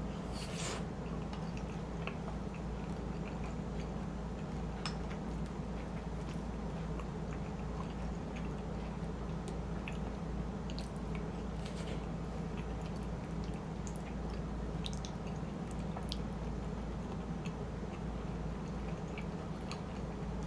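Close-miked chewing of shrimp chili and rice: soft, wet mouth sounds with scattered small clicks, over a steady low hum.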